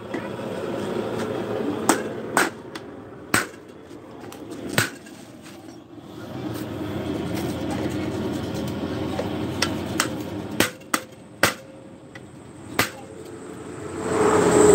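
A hand hammer strikes a car clutch disc with single sharp knocks at irregular intervals, about nine in all, over steady workshop background noise.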